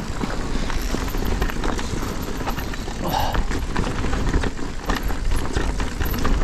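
E-mountain bike riding over a rough, stony trail: tyres crunching on loose ground and the bike rattling with many small knocks under a steady rumble.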